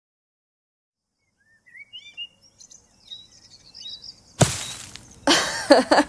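Birdsong in short rising chirps begins about two seconds in, after near silence. About four and a half seconds in a sudden loud rush of noise breaks in, and louder pitched sounds follow near the end.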